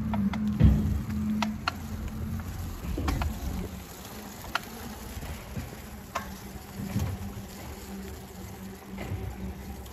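A low, steady engine hum that is loudest in the first couple of seconds and then fades to a fainter hum, with a few scattered light clicks.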